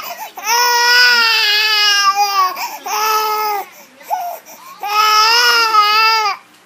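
Baby crying in three long, high wails, the first the longest, each held at a fairly steady pitch.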